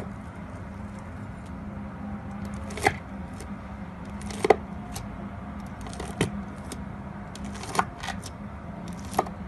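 A metal knife blade pressing into thick slime, each press giving a sharp pop or click about every second and a half, with faint crackles in between, over a steady low hum.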